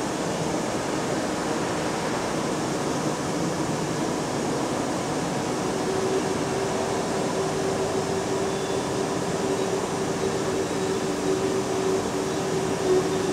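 Steady room noise: a constant rushing hiss, joined about halfway through by a low steady hum.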